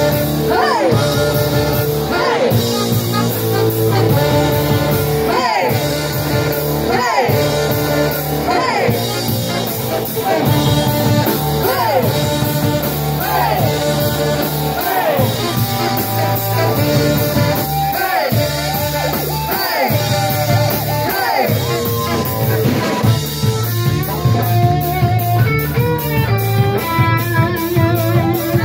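Live brass band music: saxophones and trumpet play a riff of repeated swooping bends, about one every second and a half, over drum kit and bass. Near the end the horn swoops stop and a fast, evenly strummed electric guitar takes over.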